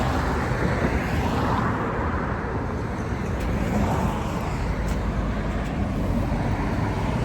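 Steady road and engine noise from a car on the move, heard from inside the cabin.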